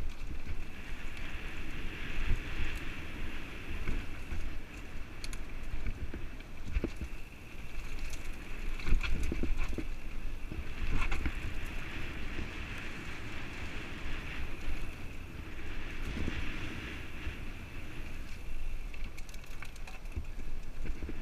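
Mountain bike riding fast down a dirt and loose-rock singletrack, heard from a helmet-mounted camera. Wind buffets the microphone, the tyres rumble and crunch over the dirt and stones, and the bike gives scattered clicks and rattles.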